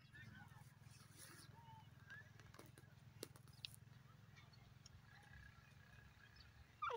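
Near silence: faint field ambience with a low steady rumble and a few faint distant bird chirps, broken by two soft clicks in the middle. A brief, louder falling call starts right at the end.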